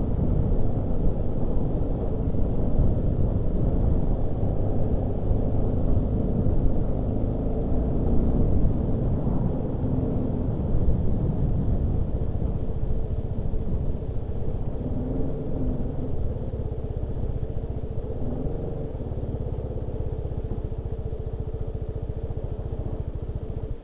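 TVS Apache RR310's single-cylinder engine running at low speed as the motorcycle rolls along, a steady low rumble that eases and quietens slightly toward the end as the bike slows.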